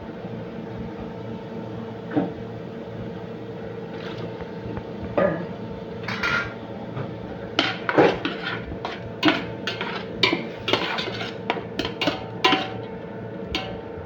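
Metal utensil clanking and scraping against a cooking pan while chop suey is stirred, a few clanks at first and then frequent, louder ones from about halfway through, over a steady hum.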